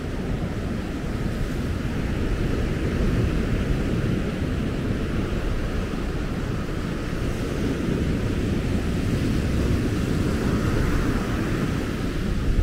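Wind buffeting the microphone in a dense low rumble, mixed with the wash of ocean surf.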